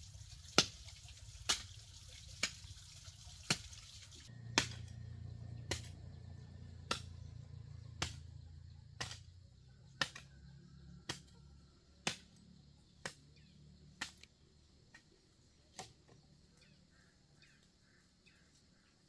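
A hoe chopping into garden soil about once a second in a steady rhythm, each stroke a short sharp strike. The strokes grow fainter near the end and stop.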